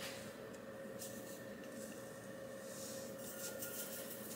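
Quiet kitchen room tone with a faint steady hum. Near the end, a soft hiss of nutritional yeast flakes poured into an empty saucepan.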